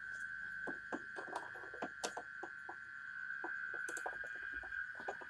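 Scattered light clicks and taps of a Polytron mini compo stereo's casing being handled and turned over for disassembly, with tool contacts at the back panel. A steady high-pitched tone runs underneath.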